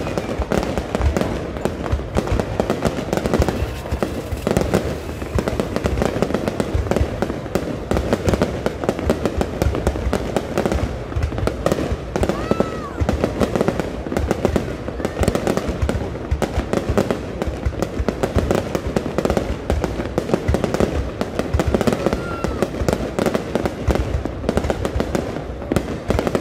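A fireworks display going off in a dense, continuous barrage: sharp bangs and crackling overlap with no pauses. A faint brief whistle rises and falls twice.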